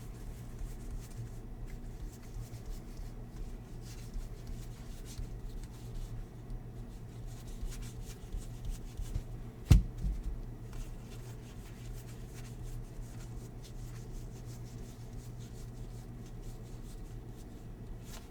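Baseball trading cards being slid and handled, a faint rustle and ticking over a steady low hum, with one sharp tap about halfway through.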